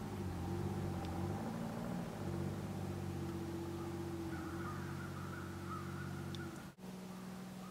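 Low, steady engine drone from a boat pushing through lake ice, its pitch dipping and coming back up during the first couple of seconds. The sound cuts out for an instant near the end.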